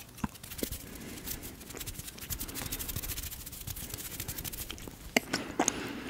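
Hands and fingers rubbing close to a microphone for ASMR: a soft, fast, crackly rubbing, with a couple of sharper clicks near the end.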